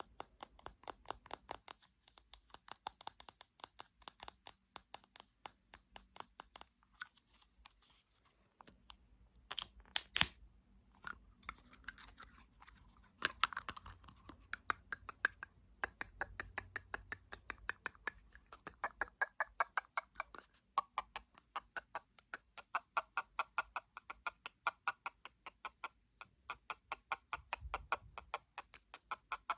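Rapid ASMR tapping on objects, a run of sharp light clicks several times a second, with a short pause about eight seconds in and a few louder knocks around ten seconds.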